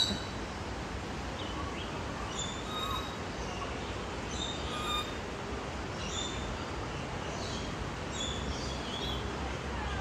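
Aviary birds calling: scattered short, high chirps and whistles, one every second or so, over steady background noise.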